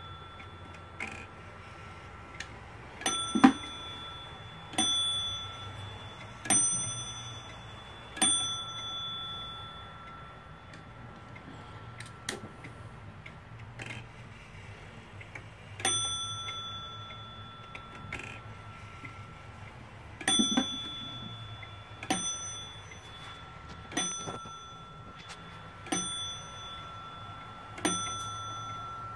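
Kiga Friese tail clock's bell striking as its hands are turned by hand: a run of about four strikes roughly two seconds apart, a single strike near the middle, then a run of about five more strikes, each stroke ringing on as a clear bell tone. Faint clicks from the movement come between the strikes.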